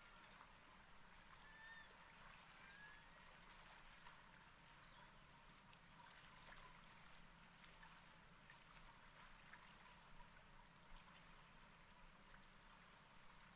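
Near silence: calm sea water faintly trickling and lapping, with a few faint short chirps in the first five seconds.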